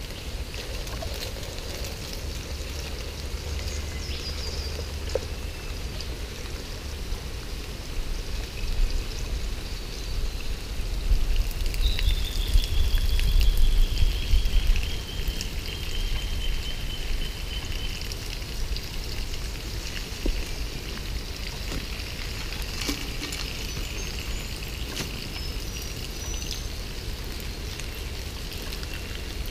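Water poured from a canvas bag into a millbank bag filter and trickling through the cloth, with a louder low swell about halfway through. A long falling whistle and a few brief high chirps sound over it.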